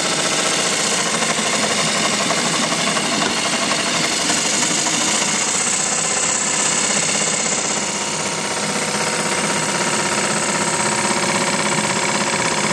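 Small model steam engine running steadily under steam on the bench, a fast even clatter, over a continuous high hiss from the butane-fired boiler plant held at about 3 bar.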